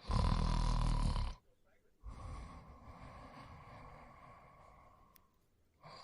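A sleeping person snoring: one loud snore about a second long, then after a short pause a longer, quieter breath that fades away over about four seconds. The next loud snore starts right at the end.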